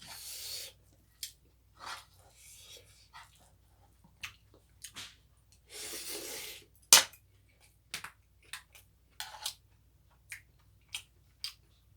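Eating at the table: scattered clicks and clinks of a spoon against a bowl, with mouth noises. There are two longer breathy hisses, one right at the start and one about six seconds in, and a single sharp clink about seven seconds in is the loudest sound.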